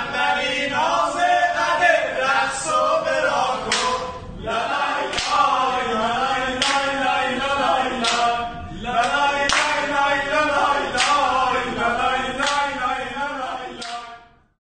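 A group of men singing a chant together, with a sharp clap about every second and a half keeping time. It cuts off abruptly near the end.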